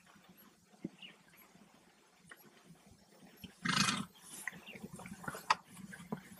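A single short, noisy animal call, about half a second long, a little past the middle, over faint scattered clicks.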